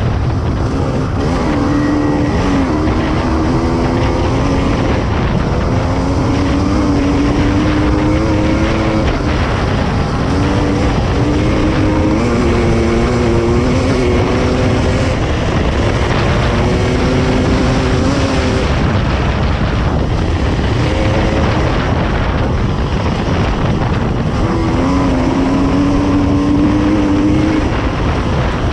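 Dirt bike engine running hard at speed, its pitch climbing and dropping back over and over as it shifts through the gears. Heavy wind rushes over the microphone throughout.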